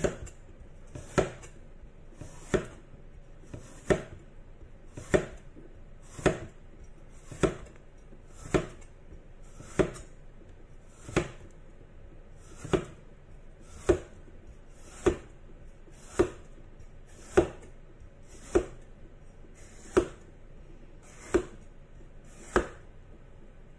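Chinese cleaver slicing bitter gourd on a bamboo cutting board: about twenty even chops, one every second or so, each a sharp knock of the blade through the gourd onto the wood.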